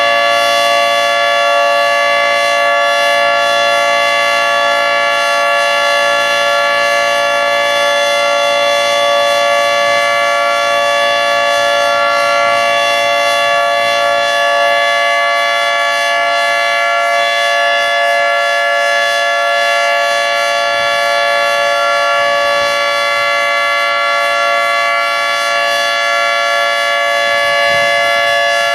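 Federal Signal 3T22 three-tone outdoor warning siren sounding its steady Alert signal: a loud, sustained chord held at full pitch without rising or falling.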